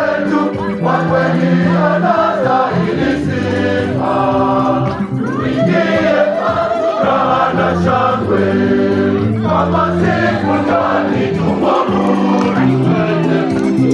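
Church choir singing a gospel song, several voices holding different notes together.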